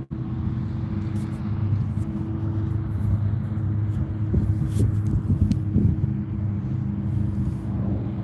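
A steady, low engine drone with a constant hum, broken by a momentary dropout right at the start.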